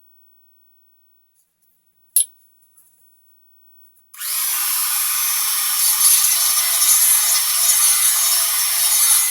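A single sharp click about two seconds in, then a Dremel rotary tool starts abruptly just after four seconds and runs steadily, its bit grinding into the work.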